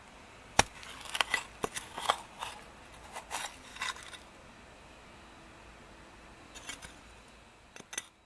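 Small metal shovel digging into hard, cement-like sandy soil: a run of sharp scrapes and clicks of the blade against grit over the first four seconds, then a few more near the end.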